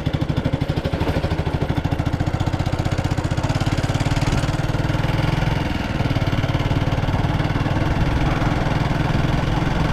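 Motorcycle engine running steadily with an even, rapid pulse as the bike rides along.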